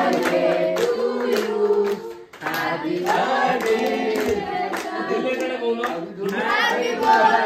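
Several people singing together while clapping along in a steady rhythm, with a brief break a little over two seconds in.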